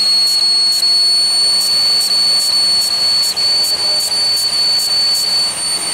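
A 2001 Pontiac Aztek GT's running 3.4-litre V6 gives a steady high-pitched whistle, while an aerosol can hisses in about a dozen short sprays around the intake plenum. The whistle is the sign of a vacuum leak, which the owner takes to be the plenum gasket.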